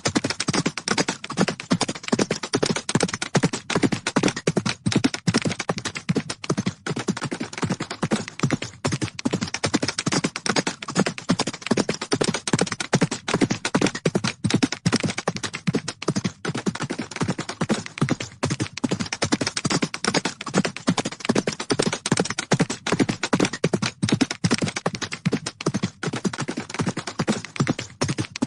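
Hoofbeats of galloping horses: a dense, fast, uneven patter of thuds that keeps up without a break.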